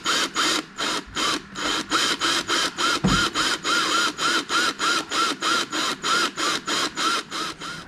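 Cordless drill drilling a hole in a boat's transom, the trigger worked in short bursts of about four a second, so the motor speeds up and slows down with each burst.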